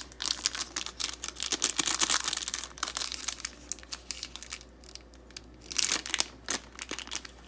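A small plastic blind bag being torn open and crinkled by hand, in dense crackling bursts for the first few seconds, then quieter, with another burst of crinkling near the end.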